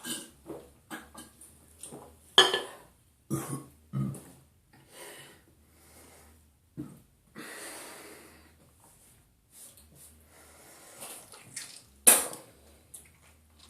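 A person burping several times, with breaths between; the two loudest come about two seconds in and near the end.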